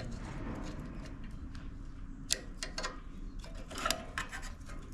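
Light metallic clicks and taps of small hand tools and a feeler gauge working on a Briggs and Stratton engine's valve rocker while the valve clearance is adjusted. Several sharp ticks come scattered about two to four seconds in.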